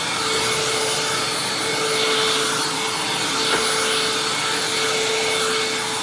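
Hoover WindTunnel Lite upright vacuum cleaner running steadily on carpet, a constant rush of air with a steady whine. Its brushroll belt is shot.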